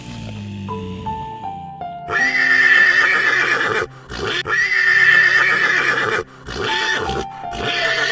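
A horse whinnying: two long wavering whinnies about two seconds each, then a shorter third call, over background music with falling stepped notes.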